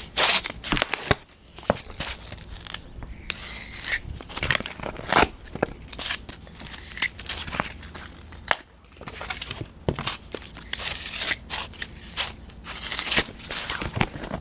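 Leatherman Wingman's knife blade slicing lines through cardboard: repeated scraping, tearing strokes with short gaps between them.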